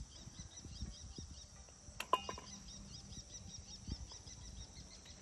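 Insects chirping steadily, a high, rapidly repeating chirp. About two seconds in there is a single sharp click with a brief metallic ring, and a fainter tap near the end.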